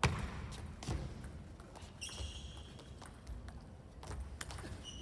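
Table tennis rally: the celluloid-type ping-pong ball being struck by the rackets and bouncing on the table, a run of sharp clicks about two a second. A brief high squeak about two seconds in.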